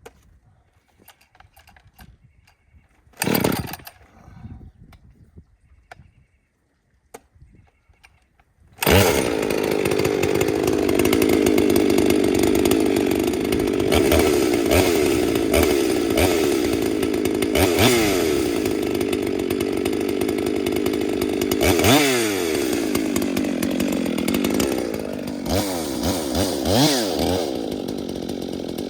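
Husqvarna 257 two-stroke chainsaw being pull-started: a short burst about three seconds in, then it catches about nine seconds in and runs at high revs, with its pitch dipping and recovering a few times near the end.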